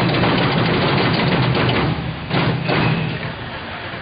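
Concrete block-making machine running in short spells: a loud rattling hum that stops about two seconds in, then one shorter burst just after.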